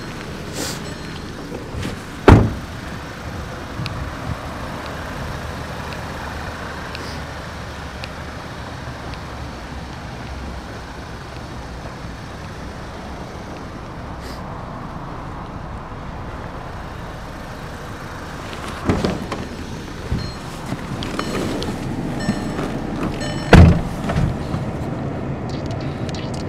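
A car door on a 2010 Volkswagen Eos shut with a solid thud twice, about two seconds in and again near the end, with a few lighter clicks a few seconds before the second thud, over steady outdoor background noise.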